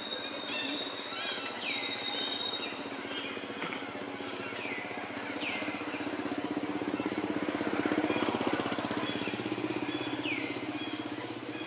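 A low engine hum, such as a passing motor vehicle, swells to its loudest about eight seconds in and then fades. Over it, a bird repeats short high calls that fall in pitch, every second or two.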